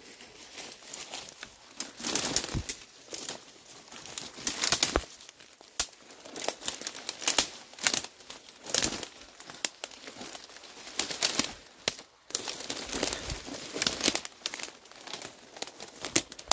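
Dry leaves and twigs rustling and crackling underfoot while branches brush and scrape past, as someone pushes through dense brush in irregular bursts.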